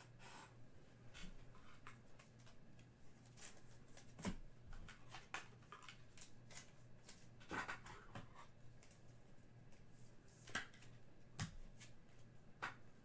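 Faint scattered clicks and rustles of trading cards being handled, a few sharper snaps among them, over a low steady hum.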